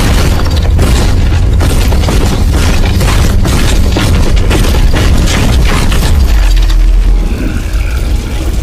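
Explosion sound effects: a continuous deep booming rumble with many crackling impacts. The rumble swells near the end, then eases a little.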